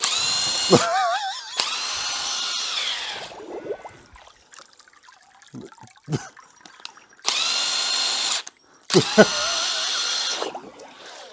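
Makita DTW1001 cordless 3/4-inch impact wrench spinning with no load in four trigger pulls, each a high whine that winds down when the trigger is released. The last pull is made with its nose dipped in water, to test whether it still works after a soaking.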